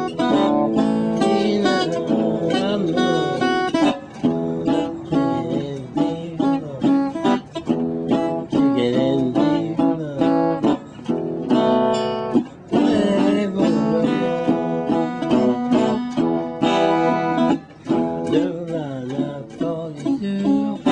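Metal-bodied resonator guitar played solo, a blues tune of plucked notes and strums.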